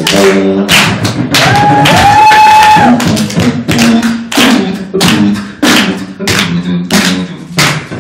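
Beatboxing: fast drum-like kick and snare strokes, about two to three a second, over a hummed bass line, with a held high note that rises, holds and falls about two seconds in.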